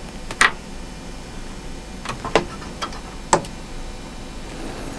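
A handful of sharp, separate clicks and light taps as ROM chips and jumper leads are pushed and handled on a Commodore 16's circuit board, the loudest about half a second in and just past three seconds.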